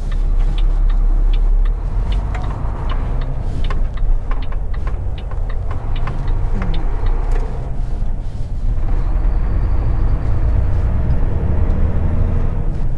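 Mack truck's diesel engine running with a heavy steady rumble heard inside the cab, with frequent sharp clicks and rattles over the first few seconds.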